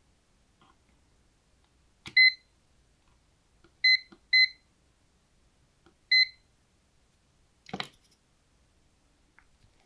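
A UNI-T digital clamp multimeter beeps four times, short high beeps, as its buttons are pressed to change mode for measuring capacitance. A sharp click follows near the end.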